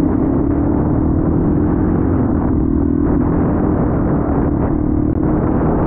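Honda CRF450L dual-sport motorcycle's single-cylinder engine running at a steady cruising speed, heard from the bike itself, muffled, over a low rumble.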